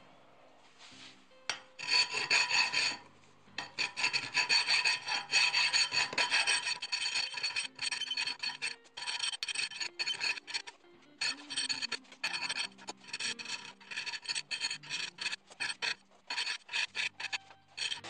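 Hand file rasping along the edge of a stainless steel knife blank clamped in a vise, in a long run of back-and-forth strokes that starts about two seconds in. The strokes get shorter and quicker in the second half.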